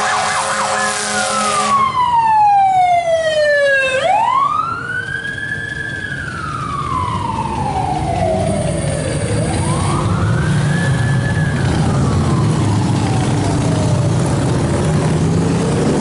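Emergency vehicle sirens: a fast yelp for the first couple of seconds, then a wail that rises quickly and falls slowly in long sweeps about every five seconds, over a low rumble of engines and traffic.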